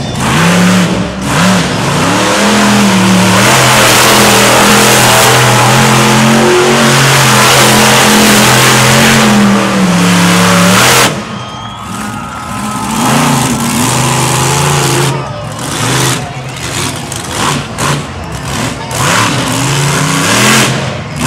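Monster truck engine held at high revs, loud and steady, for about the first half, then dropping off suddenly and revving up and down unevenly.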